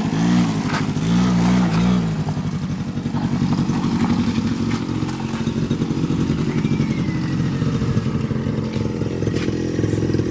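Small ATV (quad bike) engine running as it is ridden. It revs up and down for the first two seconds, then settles to a steady low-speed run.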